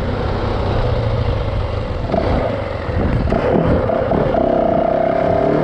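Yamaha 450 dirt bike's single-cylinder four-stroke engine running as the bike rides along a dirt road. The engine eases off briefly a little after halfway, then holds a steady pitch near the end.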